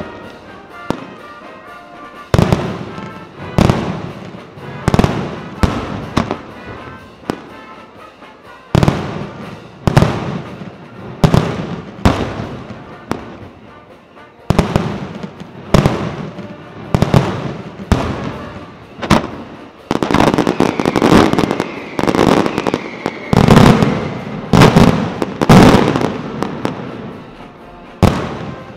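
Daytime aerial fireworks: a string of sharp shell bursts, roughly one a second, each trailing off in crackle and echo. The bursts come thicker and louder in the last third, with a faint falling whistle among them.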